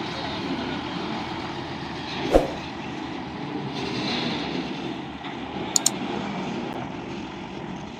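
Wirtgen W2000 road milling machine running steadily, with one sharp knock about two seconds in and two short clicks near six seconds.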